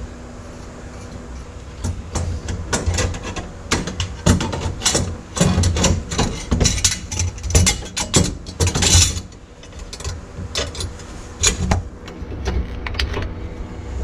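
Repeated metal clanks and rattles from a floor shifter's steel mounting bracket being worked through a hole in the car's floor pan and knocking against the transmission tunnel. The clatter is busiest in the middle and thins to a few separate knocks over the last few seconds.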